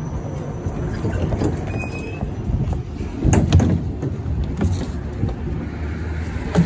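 Inside a 71-402 tram: a steady low rumble with rattles and knocks, and a louder clatter of knocks about three seconds in.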